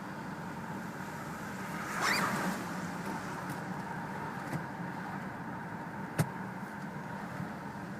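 A jacket zipper drawn in one quick rising zip about two seconds in, over the steady running noise inside the cabin of a Subaru with the 3.0-litre flat-six; a single sharp click near six seconds.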